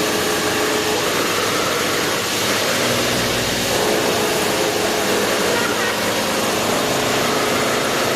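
Steady machine noise: a continuous hiss with a faint hum.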